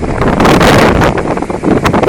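Typhoon-strength wind hitting the microphone in loud, uneven gusts, a dense rush of wind noise that overloads the recording.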